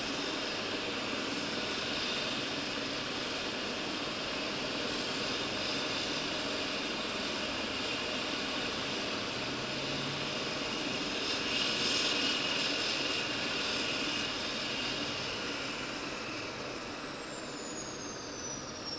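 Helicopter running on the ground: a steady high turbine whine over rotor and engine noise, a little louder partway through. In the last few seconds a thin high whine falls steadily in pitch.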